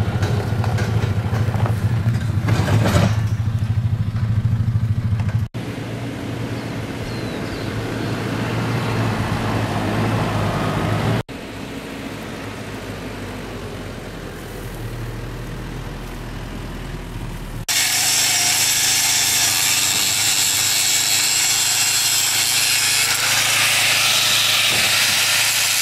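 Pickup truck engine running while the truck drives slowly over rough ground, in several edited takes with abrupt cuts between them. The last part is a steady hiss.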